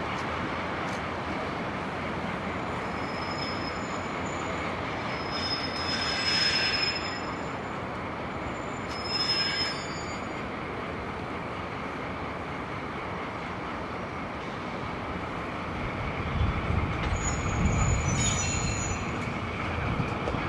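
Railway wheels rolling slowly with a steady rumble. High-pitched flange squeal rings out four times, loudest about six seconds in, and a deeper rumble builds near the end.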